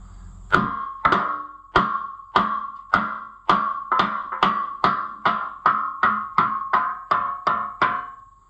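Hammer blows on the steel parts of a tractor's rear wheel, about two a second, each strike ringing out with a metallic tone, knocking the rim hardware loose.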